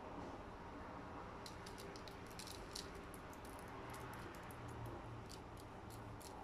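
Crushed Oreo cookie crumbs sprinkled onto coated balls and parchment paper: a quick scatter of faint ticks, starting about a second and a half in.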